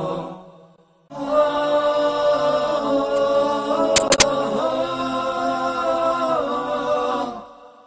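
Voice-only chanted music for a TV station ident: voices hold long notes after a short fade into silence about a second in. Three sharp clicks come about halfway through, and the music fades out near the end.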